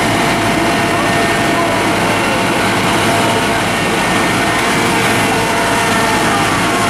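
Fire appliance's diesel engine running steadily at a constant speed, a loud even drone with a few steady tones, with voices faintly behind it.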